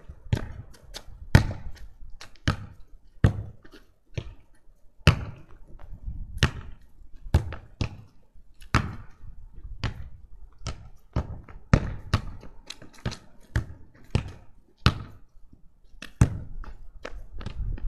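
A football kicked again and again against a wall: a run of sharp thuds, about one or two a second, as the ball strikes the wall, the ground and the player's foot.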